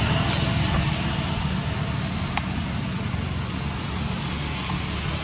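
Steady low rumbling background noise with a faint hum, and a couple of faint clicks, one about two and a half seconds in.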